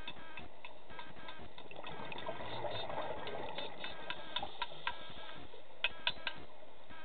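Background music with a steady repeating pattern of short pitched notes, with a few sharp clicks a little before the end.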